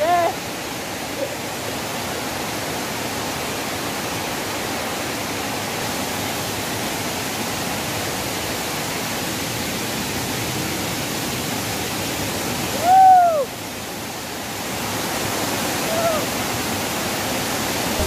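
Steady rushing of a waterfall. About two-thirds of the way through, a single short call rising and falling in pitch cuts in above it, the loudest moment.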